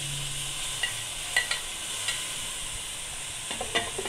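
A metal spoon scraping and tapping the cooked chicken and vegetable mixture off a plate into an aluminium pot, a few sharp clicks against the metal, over a steady frying sizzle.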